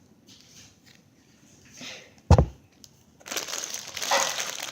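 Thin plastic packaging bag crinkling as it is handled and opened, loud and continuous from a little over three seconds in. Before it there are faint rustles and one sharp thump.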